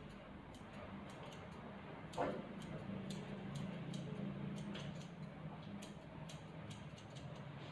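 Grooming scissors snipping in light, irregular clicks over a low steady hum, with a brief falling squeak about two seconds in.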